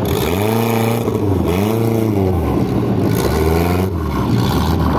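Off-road buggy engine revving up and falling back again and again, about four swells of roughly a second each, while buggies work on a tow strap.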